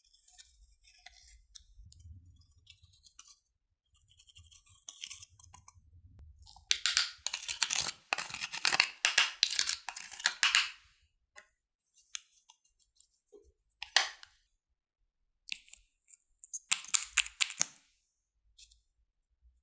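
Glossy slime being squeezed and worked by hand, giving crackling, clicking squelches in bursts. The longest run comes about 7 to 11 seconds in, with shorter bursts near the end.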